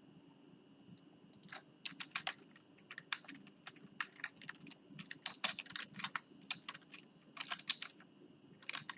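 Typing on a computer keyboard: uneven runs of quick key presses beginning about a second in, with a short pause before a last flurry near the end. A faint steady high-pitched whine runs underneath.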